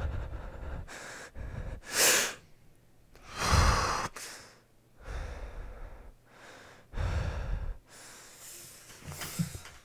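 A man breathing heavily in loud, ragged breaths, one every second or two, the loudest two in the first half.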